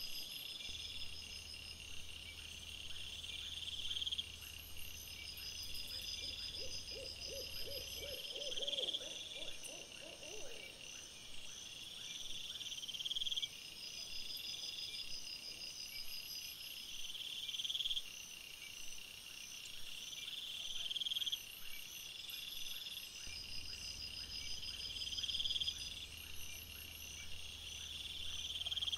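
Night insects chirping in repeating high trills, with a brief run of rapid, lower pulsed calls about six seconds in.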